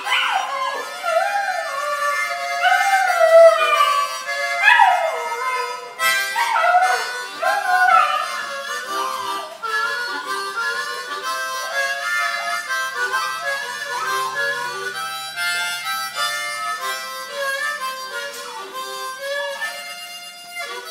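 Harmonica playing a tune in short notes and chords, with a Polish Lowland Sheepdog puppy howling along in rising and falling wails through roughly the first eight seconds; after that the harmonica carries on alone in steadier notes.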